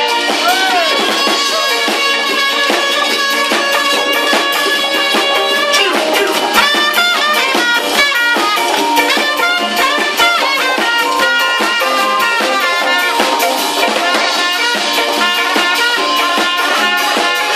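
A live band playing: trumpet and saxophone lines over a drum kit, with keyboard, sounding thin with almost no bass.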